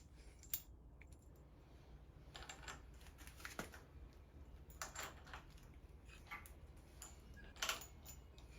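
Faint, scattered light clicks and clinks of small metal hardware being handled: a cup washer and lock washer going onto the handlebar riser bolts.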